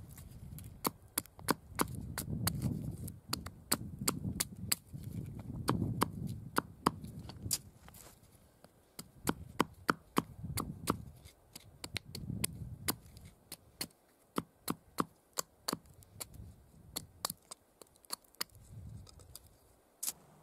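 Small hatchet chopping a thin stick against a wooden block: a long run of sharp wooden knocks, about two or three a second. A low rumble rises and falls under the strikes for the first two thirds.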